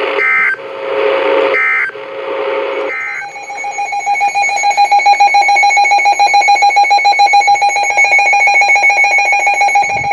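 Emergency Alert System broadcast: radio hiss broken by three short, chirpy digital data bursts, the SAME header, then from about three seconds in the loud, steady attention tone with a fast pulsing beat.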